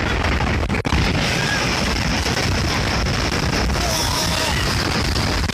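Background music over a loud, continuous rumbling noise, with one sharp click a little under a second in.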